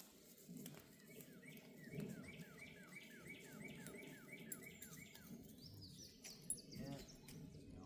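A songbird singing faintly: a run of about a dozen quick down-slurred whistled notes, roughly three a second, then a few higher notes near the end.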